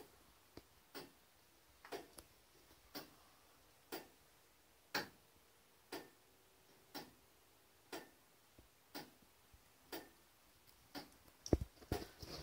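A 1907 E. R. Syrstad tower clock movement ticking, one sharp tick about every second. Near the end, louder irregular knocking and rustling comes in.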